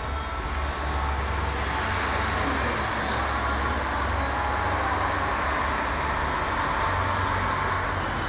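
Road traffic on the street: vehicles driving past, a steady rushing noise over a low rumble that swells a little about a second in.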